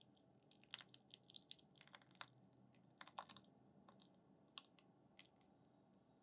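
Hot cream poured from a saucepan onto chopped white chocolate in a glass bowl: faint, irregular crackling ticks, busiest in the first few seconds and thinning out near the end.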